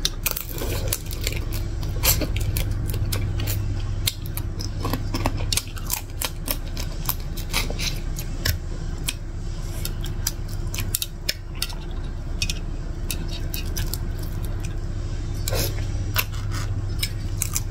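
Close-miked chewing of crispy deep-fried giant freshwater prawn, many sharp crackling crunches in quick succession, over a steady low hum.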